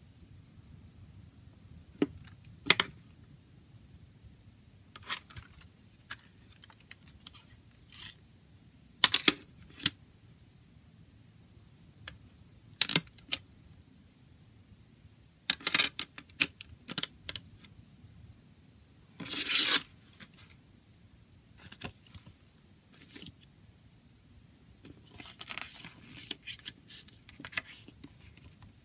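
Plastic CD jewel case being handled and opened: scattered sharp clicks and snaps of the hinged case. About two-thirds of the way in comes a longer scrape, as the paper booklet is slid out. Near the end there is soft paper rustling as the booklet is opened.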